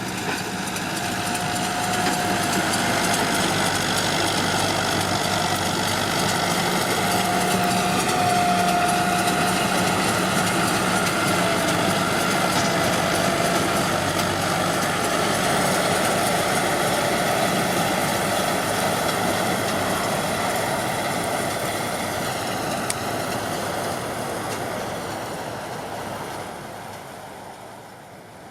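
John Deere 5720's four-cylinder diesel engine running steadily under load while pulling a round baler. It grows louder over the first couple of seconds and fades away over the last few seconds.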